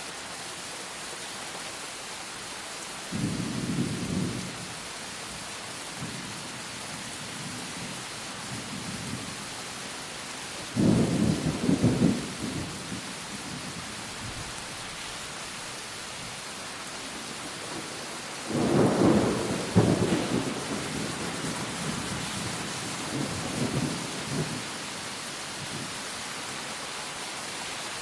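Thunderstorm sound effect: steady rain with four rolls of thunder over it, the second and third the loudest.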